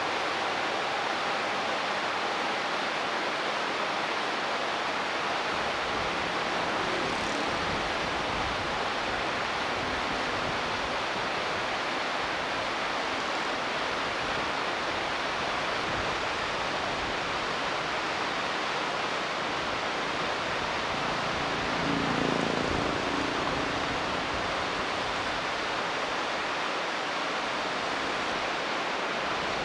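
Steady rushing of a shallow river flowing over riffles, an even hiss with no breaks. A faint low hum swells briefly about three-quarters of the way through.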